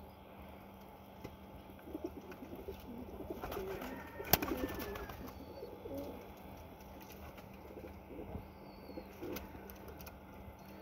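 Domestic pigeon cooing: a run of low, wavering coos that swells to its loudest about four seconds in, then fainter coos later on. A single sharp click comes at the peak.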